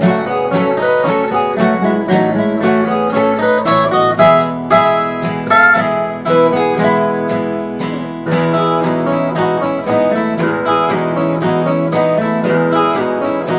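Acoustic guitar playing quick picked notes over ringing lower notes.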